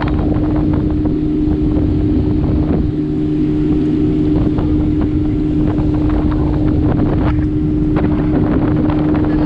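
Outboard motor of a small open motorboat running at speed with a steady hum, over the rush of water along the hull and wind buffeting the microphone. A few short knocks come through, the loudest about seven seconds in.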